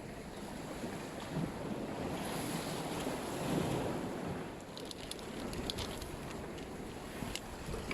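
Sea waves washing and wind buffeting the microphone, in a steady rushing wash. A few light clicks come through about five seconds in and again near the end.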